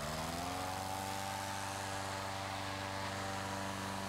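Hot air balloon inflator fan's engine spinning up, its pitch rising over the first second, then running steadily as it blows cold air into the envelope.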